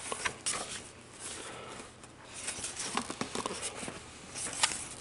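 Large glossy pages of a picture book being turned and smoothed flat: paper rustling and brushing, with scattered small scratchy taps.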